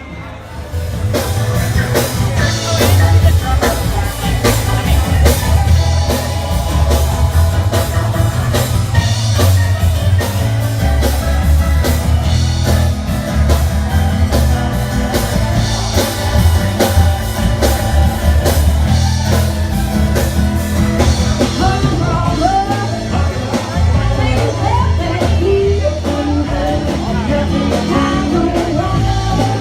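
A rock band playing live, with drum kit, bass, guitar and a singer. It starts up about a second in and plays at a steady, loud level, with the vocal line most prominent in the second half.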